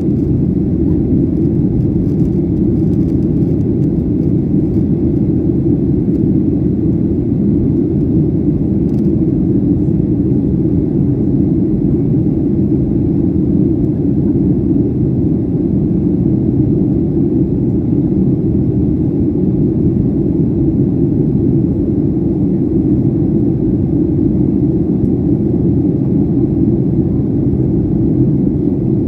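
Airliner cabin noise during the climb after takeoff: the steady, deep rumble of the engines and airflow heard inside the passenger cabin.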